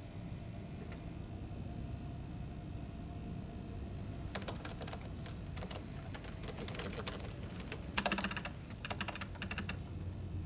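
Rapid clicking of buttons and switches on a control console, beginning about four seconds in and coming in dense flurries, over a low steady hum of equipment.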